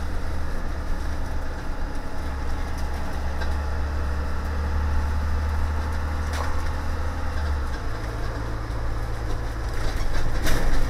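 Cab of a 2017 CE school bus on the move: a steady low engine drone that steps up in pitch about three-quarters of the way through, with scattered sharp ticks and creaks from the bus body in the freezing cold, a couple of them loud near the end. The bus is squeaky and groany and poppy while the cab is still cold.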